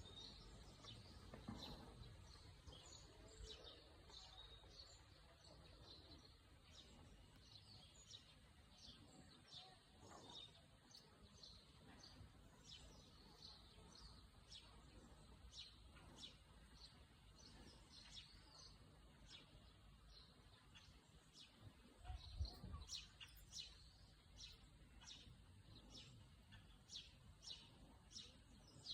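Faint bird chirping: many short, high notes scattered throughout, over a low background hush. There is a brief low rumble about 22 seconds in.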